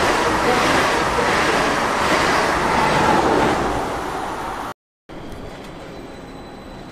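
Train running past on the rails: a loud, steady rushing rumble of wheels and running gear that starts to fade after about three and a half seconds. A cut near the end gives way to a much quieter steady background with a faint high whine.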